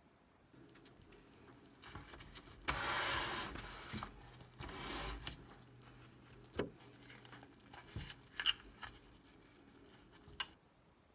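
Handling noise as a microscope is moved about on a wooden table: two stretches of rubbing, sliding noise, then a few sharp clicks and taps.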